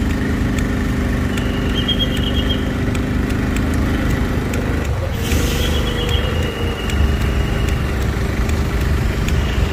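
Motorbike engine running at low speed in slow, dense road traffic, with the noise of surrounding cars and motorbikes. About five seconds in there is a short hiss and the engine note changes as the bike moves off.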